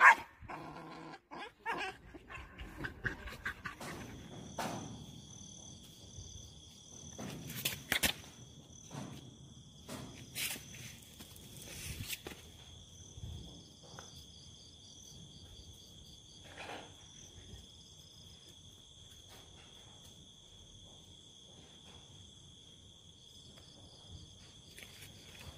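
A dog barking in the first few seconds during a play-fight between dogs, then scattered knocks and scuffles. Insects, likely crickets, chirp steadily in the background from about four seconds in.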